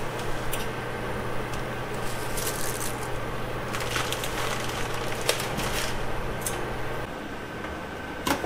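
Pot of water at a rolling boil, bubbling steadily, with spaghetti dropped in and a few sharp clicks of handling. A steady low hum runs under it and stops about seven seconds in.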